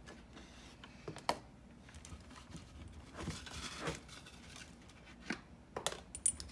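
Quiet kitchen handling sounds as a raw steak is flipped over on a plate with tongs: a few light clicks of the tongs and plate, with a soft rustle in the middle.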